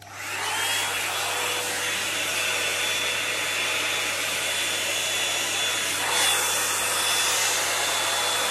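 Toni & Guy hot air brush volumiser switched on, its motor whining up to speed in the first half-second. It then blows steadily, a rush of air with a thin high whine over it.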